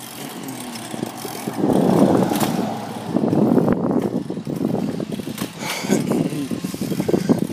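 Riding a bicycle: wind rushing over the microphone, with a steady run of small rattles and clicks from the bike. The noise swells about two seconds in.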